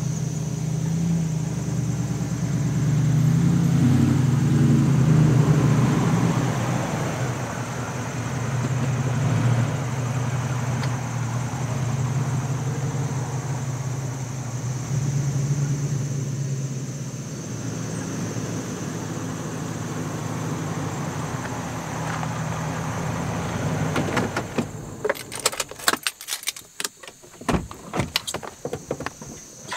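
Toyota Tundra pickup truck's engine running as it drives up, louder as it nears, then idling steadily. About 25 seconds in the engine stops, followed by a quick string of clicks and key jingles as the driver's door handle is pulled.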